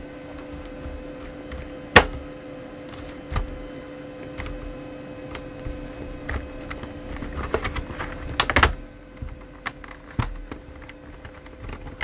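Scattered sharp clicks and light knocks of hard plastic and small metal parts being handled during laptop disassembly. One loud click comes about two seconds in and a quick run of clicks just past the middle, over a steady faint hum.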